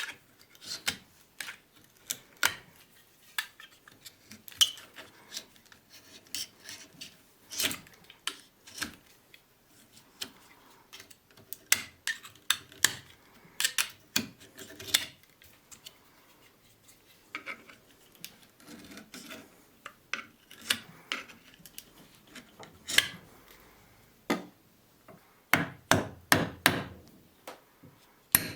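Workshop handwork on a rusty hammer: scattered knocks and clinks of metal and wood at irregular intervals, with a quick run of about half a dozen taps near the end.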